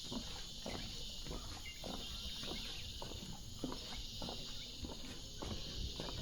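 Footsteps crunching on rainforest leaf litter at a steady walking pace, about two steps a second, under a constant high drone of an insect chorus.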